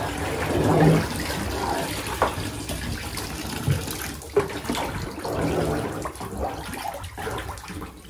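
Bath water swishing and splashing in a bathtub as a hand stirs it, mixing boiled water with cool tap water to bring the bath down to a warm temperature.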